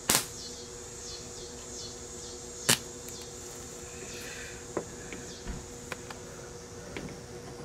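Two sharp pops about two and a half seconds apart, then a few faint ticks, over a steady hum: a MIG welder's arc catching briefly as the gun's wire is touched to a thin wire basket frame, with the welder set to minimum power and low wire speed for a tack.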